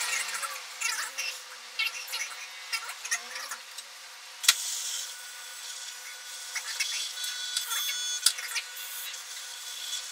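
Small servo motors of a 3D-printed robotic arm whirring and buzzing as the arm swings round to the ingredient cups, with scattered clicks. A sharp click comes about four and a half seconds in, and a higher whine runs for a few seconds later on.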